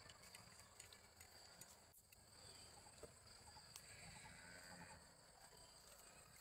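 Near silence: faint outdoor forest ambience with a steady high insect drone and a few faint clicks and rustles.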